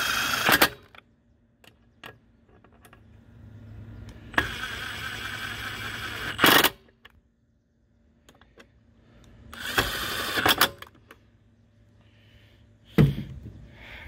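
Cordless power driver with a nut-driver bit running down the recoil starter housing bolts on a Briggs & Stratton push-mower engine. It comes in three runs, the longest about two seconds, with a single sharp knock near the end.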